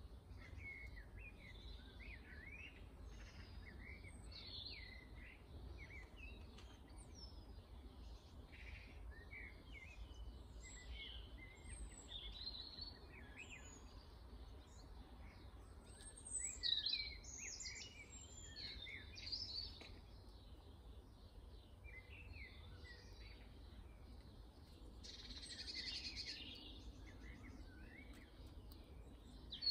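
Small songbirds calling and twittering, many short chirps and quick up-and-down notes, with a louder flurry of calls about halfway through, over a faint steady low rumble.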